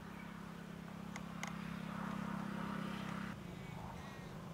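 A steady low engine hum, like a motor vehicle idling. A rushing noise builds about two seconds in and cuts off abruptly just after three seconds, and two faint clicks come about a second in.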